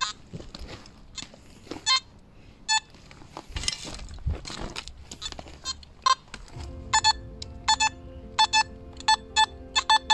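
Simplex metal detector giving short, sharp target beeps, quickening into a run of about two a second in the second half as the coil is swept back and forth over a buried metal object. A few scrapes and knocks come in the first half.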